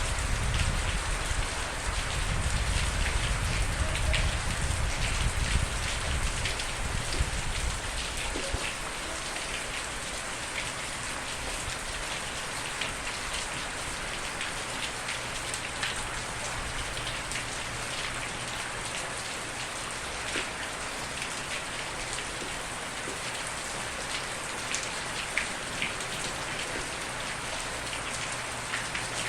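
Steady rain falling, a dense hiss with scattered sharper drop ticks. A low rumble underlies it for the first seven or eight seconds, then dies away.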